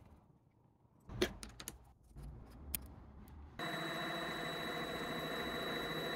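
Light metal clicks and knocks of a hex key and tool holder being handled on a lathe's tool post. About three and a half seconds in, a small lathe starts running with a steady mechanical hum and whine that holds level.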